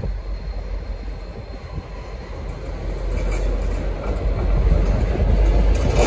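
V/Line N class diesel locomotive N475 pulling out and drawing near, its low engine sound growing louder over the last few seconds.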